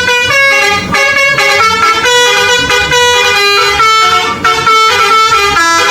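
Indonesian 'telolet' bus horn, a multi-tone air horn playing a quick tune of stepped notes that change every fraction of a second without a break.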